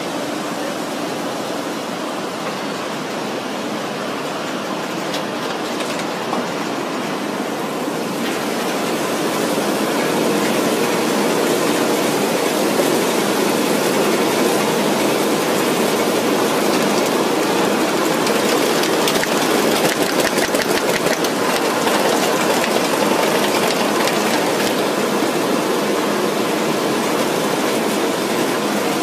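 Automated letter-sorting machine running: a steady mechanical rush with fast clicking as letters feed through and stack in its bins. It grows louder about a third of the way in.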